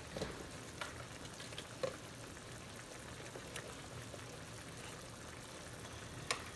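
Thick milk-based gravy simmering in a pan: a faint, steady bubbling with scattered small pops.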